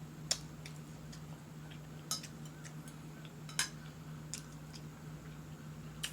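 Eating utensil clinking against a plate four times, with fainter ticks in between, over a steady low hum.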